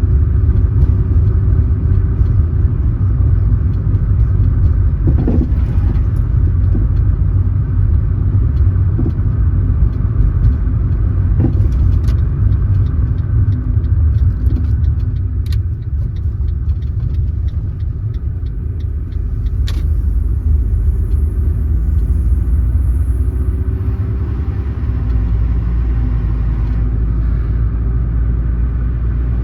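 Car driving along a road: a steady low rumble of road and engine noise, with a few faint sharp ticks, and the rumble settling deeper about three-quarters of the way through.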